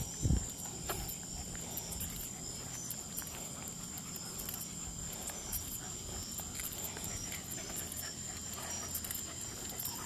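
Night insects trilling steadily in a high, thin pitch, with faint taps of footsteps and dog claws on asphalt. A couple of dull thumps just at the start.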